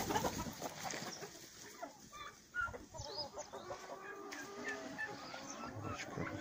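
A flock of young chickens clucking: short, repeated calls that come thicker from about halfway through.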